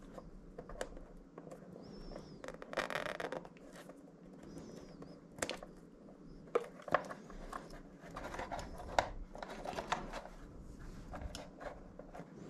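Soft rustling and scattered light clicks of insulated wires being bundled and tucked by hand against an outboard motor's plastic lower cowling.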